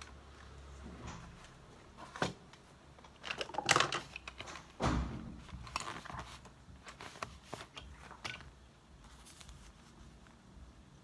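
Hands rummaging through a zippered fabric pencil case: fabric rustling and small clicks and knocks of stationery, busiest from about three to five seconds in, then dying down to light paper sounds.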